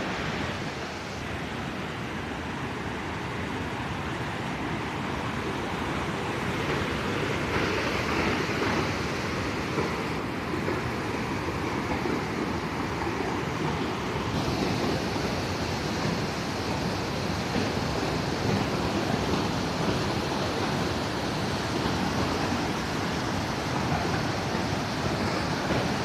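Waterfall in flood, heavy brown water pouring over a wide rock ledge. The water rushes in a steady roar that grows a little louder over the first several seconds.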